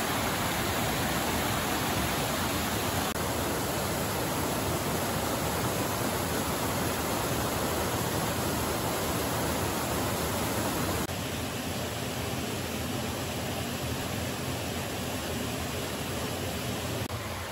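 Steady rush of a small stream's waterfall pouring over rock ledges. It drops a little in level about two-thirds of the way through.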